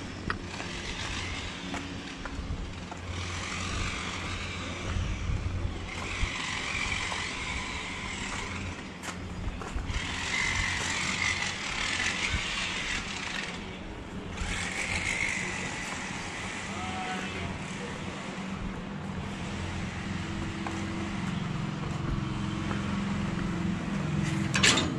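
Steady outdoor street noise with a low rumble and distant traffic, picked up while walking. A single sharp knock comes near the end.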